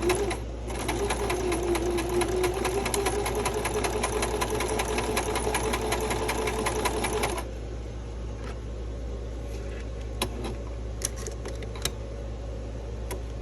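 Domestic zig-zag sewing machine running fast, with a steady motor hum and rapid, even needle clatter, stopping suddenly about seven seconds in. A few light clicks follow.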